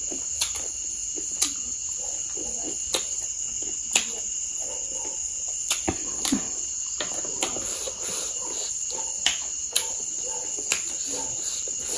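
Steady high chirring of crickets, with about a dozen sharp clicks and taps scattered irregularly through it.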